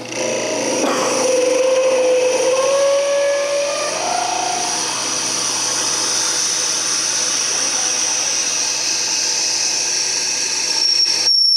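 Drill bit in a tailstock drill chuck boring into a pen blank spinning on a wood lathe, widening the hole, with a loud, high-pitched whine: an awful noise. Near the end the cutting noise stops abruptly, leaving a high whine that slowly falls in pitch.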